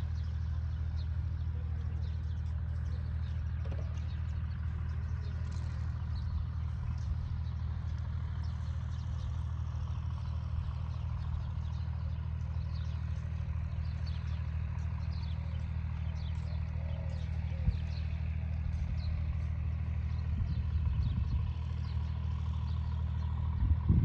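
Steady low drone of an engine running, even and unchanging.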